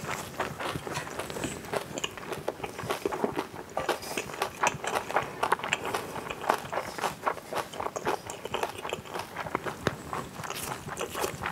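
Close-miked chewing of cockle bibimbap with raw greens and chili peppers: a dense run of small wet crunches and mouth clicks, with a wooden spoon scooping in the bowl.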